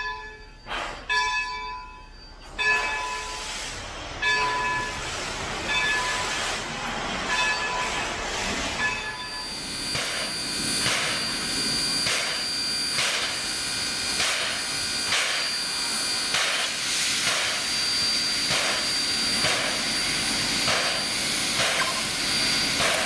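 A steam locomotive bell rings with a stroke about every second, fading out after several seconds. Then Baldwin Locomotive Works #26, a 1929 steam switcher, chuffs about once a second over a steady hiss of escaping steam as it moves slowly, steam blowing out at its cylinders.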